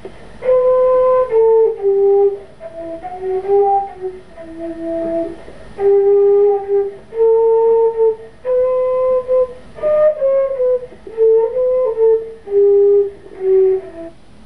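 Solo flute playing a slow melody, one held note at a time.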